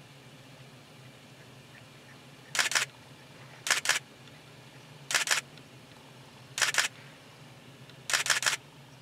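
Single-lens reflex camera shutter firing in continuous-shooting bursts: five short bursts of several rapid clicks each, about one every one and a half seconds.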